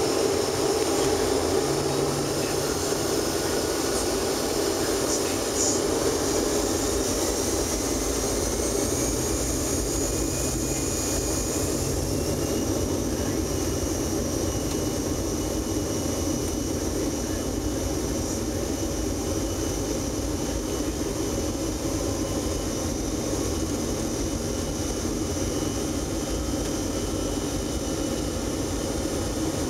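Boeing 737-500's CFM56 jet engines spooling up for a rolling takeoff, heard inside the cabin: a steady loud noise with a faint whine that climbs slowly in pitch, over the rumble of the wheels on the runway as the plane accelerates.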